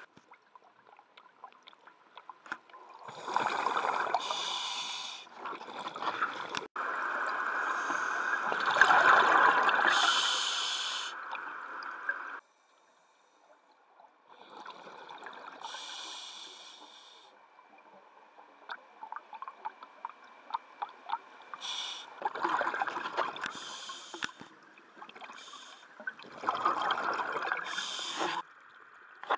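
Scuba diver breathing through a regulator underwater: breaths come as hissing swells, each exhalation bubbling out, about five in all with crackling bubble pops between them.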